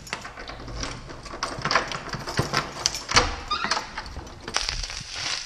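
Handling of a wooden door: irregular clicks and knocks of the handle and latch as it is opened, with a short rising squeak about three and a half seconds in. A steady high hiss starts near the end.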